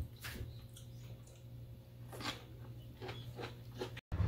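Faint, scattered rustles and crackles of dried seaweed (gim) and filling being handled on a bamboo rolling mat while kimbap is being rolled, with a few small clicks and a cut to dead silence near the end.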